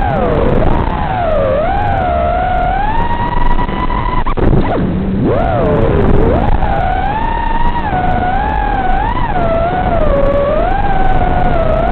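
Brushless motors of an FPV quadcopter whining, the pitch wavering up and down with the throttle. About four seconds in the pitch drops sharply low, then climbs back up as the throttle is chopped and opened again.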